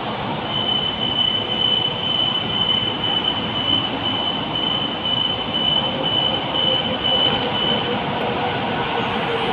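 A train running past, a steady rumbling rush of noise with a thin high whine held over it that stops about a second before the end.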